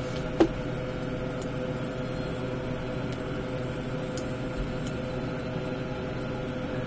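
Steady electrical hum and fan-like noise, with one short sharp knock about half a second in and a few faint clicks after it.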